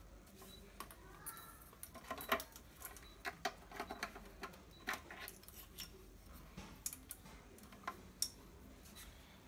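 Power cord being wound around a small portable Makita air compressor: faint, scattered clicks and taps of the cord and plug against its plastic housing.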